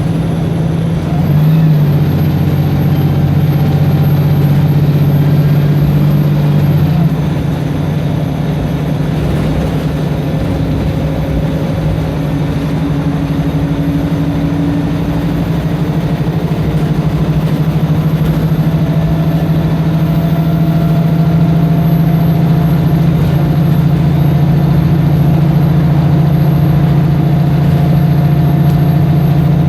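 Wright Pulsar single-deck bus's diesel engine running steadily at a low, even pitch. A louder, fuller layer comes in about a second and a half in and drops back about seven seconds in.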